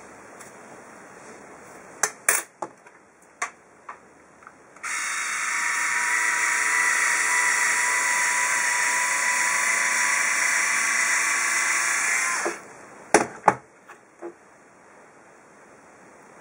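An Instyler rotating hot iron whirs steadily as its motorised barrel spins through a section of hair. The barrel runs once it is clamped shut. The whir cuts in abruptly about five seconds in and stops about seven seconds later. A few light clicks come before and after it.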